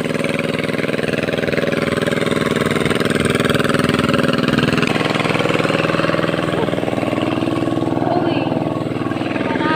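Two-wheel hand tractor engine running steadily with a fast, even chug, as it tills a flooded rice paddy.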